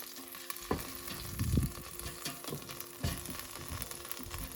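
Half-cooked baby back ribs sizzling in a hot air fryer basket as they are turned over, with irregular knocks and clicks from the handling over a steady hum.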